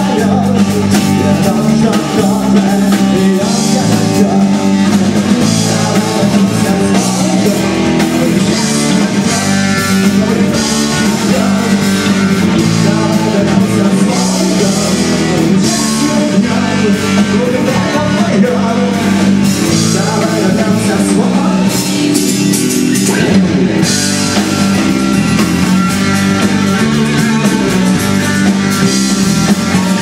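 Live rock band playing: drum kit, electric bass and electric guitars.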